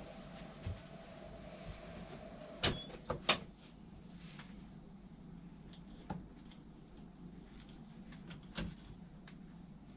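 A few sharp knocks and clunks of things being handled, the loudest three close together about three seconds in, as the find is lifted out of its electrolysis bath. A faint steady hum stops at the first of them.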